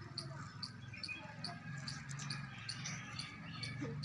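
A high-pitched chirp repeated about three times a second, with a steady low hum underneath.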